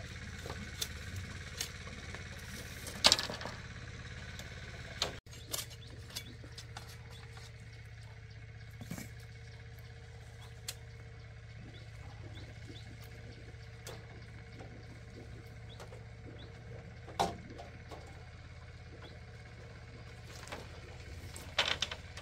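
A few short, sharp knocks or taps, several seconds apart and loudest about three seconds in, over a steady low hum.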